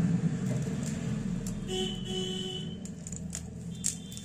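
Street traffic: a vehicle's low engine rumble, fading over the first second, then a horn honking twice briefly about two seconds in. Plastic packaging crinkles and wire connectors click as a wiring harness is handled.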